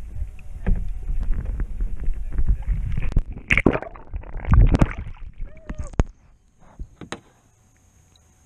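Rumbling, knocking and rubbing of an action camera being handled and repositioned on a plastic kayak, with many sharp knocks. It goes much quieter about six seconds in, leaving a few isolated clicks.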